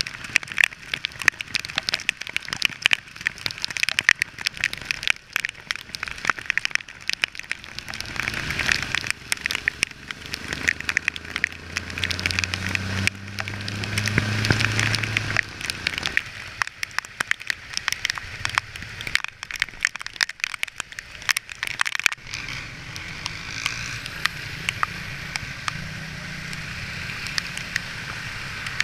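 Heavy rain striking a motorcycle-mounted camera, a dense irregular crackle of drop hits. A vehicle engine hum swells under it about halfway through. In the last few seconds the hits give way to a steadier hiss of rain over a low engine hum.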